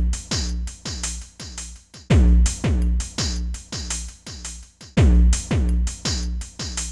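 Electronic background music with a drum-machine beat of deep booming hits, about three a second. Each hit drops in pitch. The loudest phrase starts again about two seconds in and again about five seconds in.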